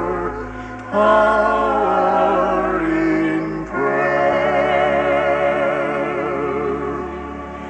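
Gospel music: slow singing in long held notes with vibrato over a steady instrumental accompaniment, with short breaks between phrases about a second in and near four seconds.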